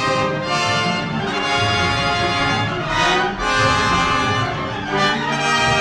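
Brass band music, with trumpets and trombones playing a changing line of held notes.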